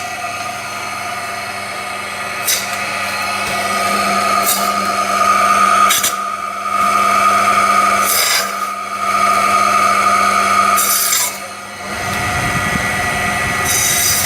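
Electric chicken-cutting machine running with a steady whine, its blade sawing through chicken pieces in about half a dozen short rasping cuts.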